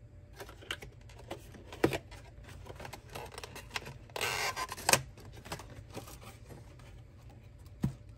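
Quiet scattered clicks and clinks of tableware being handled, with a short burst of hiss about four seconds in.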